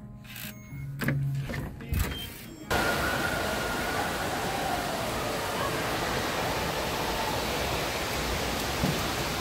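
A hotel room door's metal lever handle and latch clicking and knocking a couple of times. About three seconds in, this gives way abruptly to the steady rushing noise of an indoor water park, with water running down a slide.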